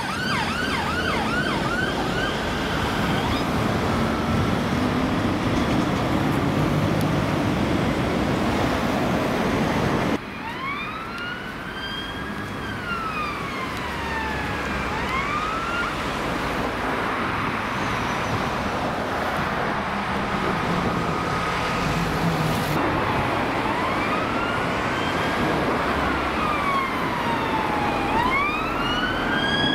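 Ambulance siren on a fast yelp, fading out within the first few seconds, leaving road traffic noise. After a sudden change about ten seconds in, a police car's siren on a slow wail rises and falls, a few seconds per sweep, over traffic.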